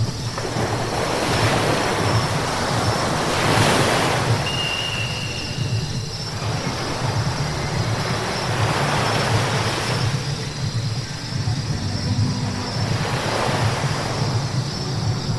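Car driving on a wet road: a steady low road rumble with tyres hissing on the wet surface, the spray hiss swelling and fading three times.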